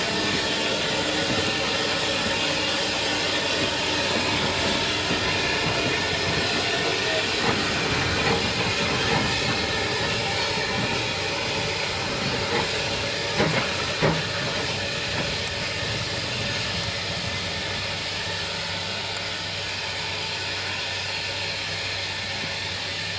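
A heritage railway train running, a steady noise with hiss, slowly fading toward the end. Two sharp knocks come about two-thirds of the way through.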